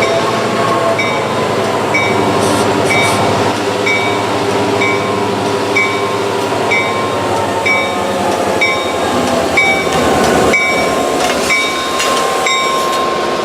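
A train passing through a grade crossing, its wheels rumbling over the rails, while the crossing bell dings steadily about twice a second.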